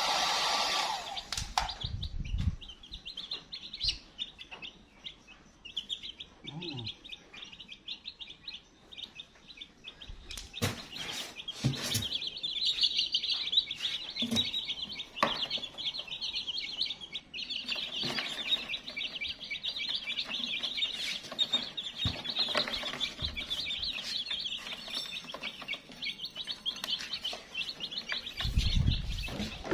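A brood of chicks peeping continuously, many high cheeps overlapping, with occasional knocks and taps.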